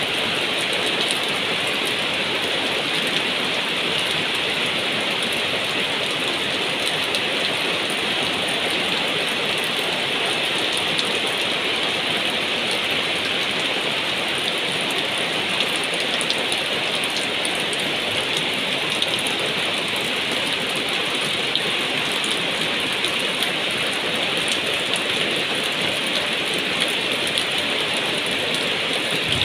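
Heavy rain pouring steadily onto a wet rooftop floor and the leaves of potted plants, an even hiss of spattering drops.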